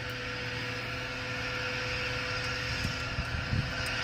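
Steady mechanical hum with a few faint ticks near the end.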